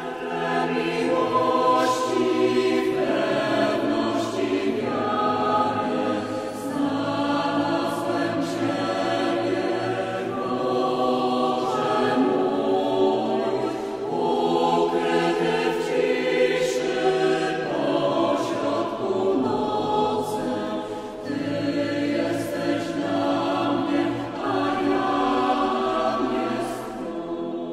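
A schola (small liturgical choir) singing in several voices, holding sustained chords that change every second or two, with sung consonants audible. The singing begins to fade near the end.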